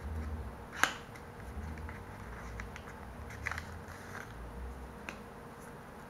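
Small paper and card packaging handled and opened by hand, with a sharp click about a second in, then softer clicks and brief rustles as the SIM adapter card is slid out.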